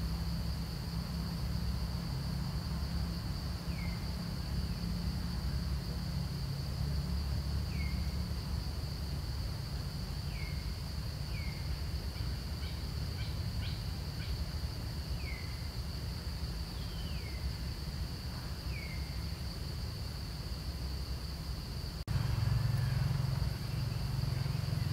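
Outdoor ambience: a steady, high-pitched insect drone with short falling bird chirps every few seconds, over a low rumble. The rumble gets louder near the end.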